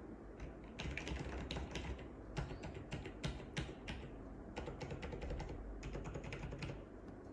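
Typing on a 1990 Apple Extended Keyboard II with lubed Alps Cream Damped switches, paper-modded click leaves and dye-sub PBT keycaps: a run of quick, irregular key clicks, easing off near the end.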